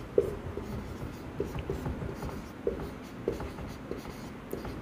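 Marker pen writing on a whiteboard: a series of short, irregular strokes and taps of the tip against the board.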